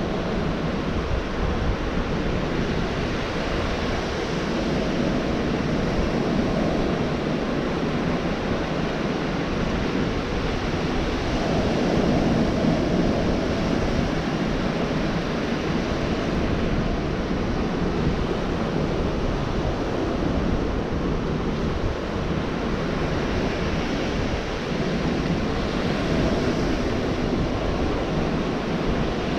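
Gulf of Mexico surf breaking on a beach, a steady wash of waves that swells a little about halfway through, with some wind buffeting the microphone.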